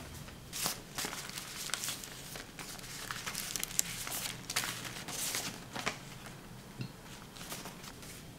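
Paper envelopes being flipped through by hand, a run of irregular papery rustles and crinkles.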